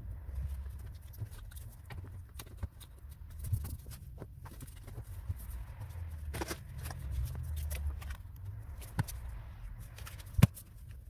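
Scattered light clicks and knocks from handling the wiring harness inside a stripped car door's bare metal frame, with one sharp click near the end, over a low rumble.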